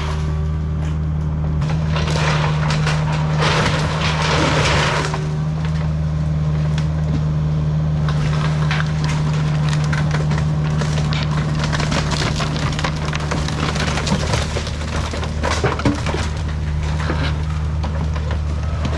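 A Kubota diesel engine running steadily under the crunching and splintering of wooden building debris being crushed and broken apart. The crunching is densest in the first five seconds, then thins to scattered cracks and snaps.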